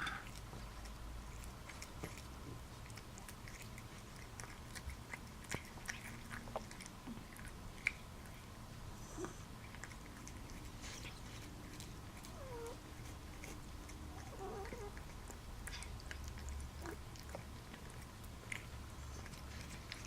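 A cat eating: quiet, irregular chewing and clicking, with the odd noise she makes only while eating, which sounds almost like a breathing problem, though a vet has found her okay.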